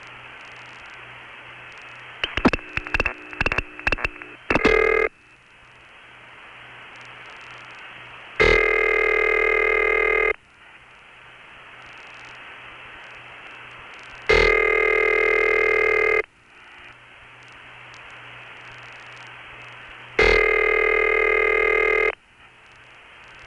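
Long-distance telephone line with steady carrier hiss and hum. A flurry of switching clicks and short tone blips comes between about two and five seconds in, then the call rings out with three buzzy ringback tones, each about two seconds on and four seconds off.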